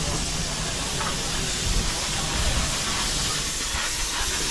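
Saddle-tank steam locomotive 75008 hissing steam steadily.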